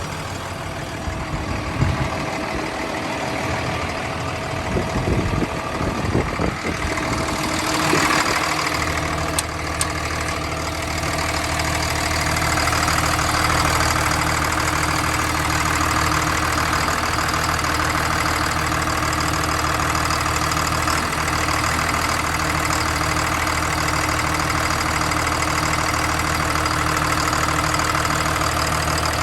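Caterpillar D6M XL dozer's diesel engine starting, running roughly for the first several seconds, then settling about eight seconds in into a steady idle, with the light smoke typical of startup.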